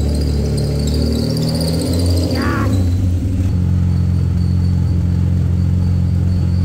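Freshly swapped-in BMW M52B28 2.8-litre straight-six running at a steady idle through a temporary exhaust centre section. A brief higher wavering squeak comes about two seconds in.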